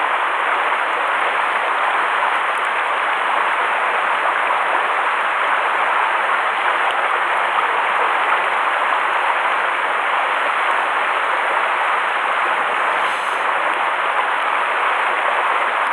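Steady rushing of a mountain stream spilling over a small rocky cascade, an even water noise that holds level throughout.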